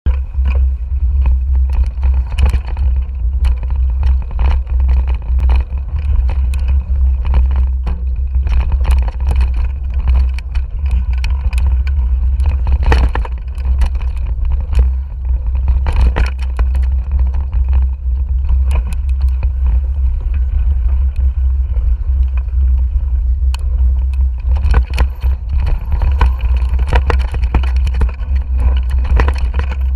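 Mountain bike ridden fast along a dirt trail, heard through a handlebar-mounted camera: constant heavy wind rumble on the microphone, with frequent clicks and rattles as the bike jolts over roots and bumps.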